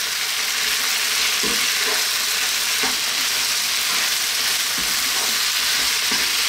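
Freshly added raw chicken breast pieces sizzling in hot oil in a nonstick skillet with potatoes and onions, a steady frying hiss on a fairly vibrant heat. A spatula stirs the pan, scraping against it a few times.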